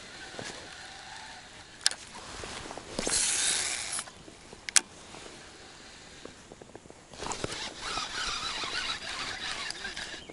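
Baitcasting reel working through a cast and retrieve: two sharp clicks, a short loud whir of the spool about three seconds in, and a longer whirring from about seven seconds on as the handle is cranked and the lure is reeled in.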